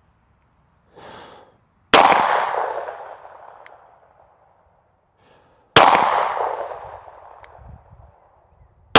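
Two pistol shots from a Springfield Armory Echelon, about four seconds apart, each cracking sharply and then echoing away over a couple of seconds; a third shot lands right at the end.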